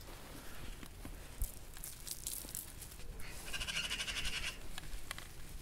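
A single quavering bleat from a goat or sheep, about a second and a half long, with scattered soft clicks before it.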